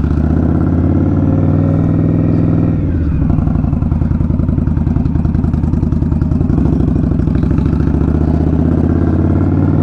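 2019 Indian Scout Bobber's V-twin engine running through a Vance & Hines slash-cut exhaust while riding at low speed. Its note drops about three seconds in, then holds steady.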